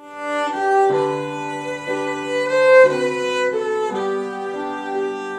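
Slow music on bowed strings led by a violin: sustained notes that change about once a second, over a lower held note that enters about a second in.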